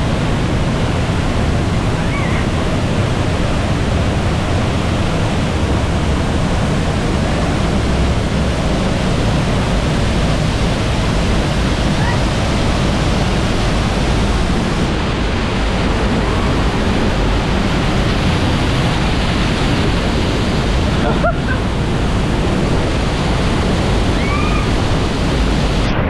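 Waterfall close by, a loud, steady rush of falling water.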